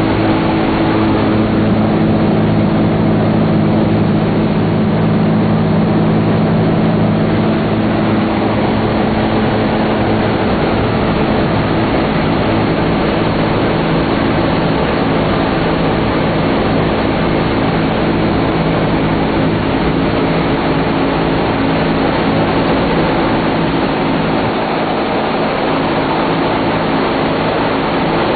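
The engines of a B-17 Flying Fortress, four radial piston engines, droning steadily in flight, heard from inside the fuselage as a loud, even hum with a rushing noise over it.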